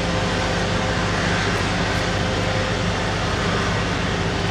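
Cessna Citation Bravo's twin Pratt & Whitney Canada PW530A turbofans running at taxi power while the jet rolls slowly: a steady jet rush with a faint steady whine.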